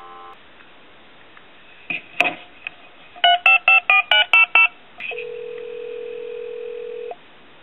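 Telephone line audio: dial tone cuts off just after the start, a couple of clicks about two seconds in, then about eight quick touch-tone (DTMF) digits dialed in a row. A steady tone of about two seconds follows, the ringback as the call to a time-and-temperature number goes through.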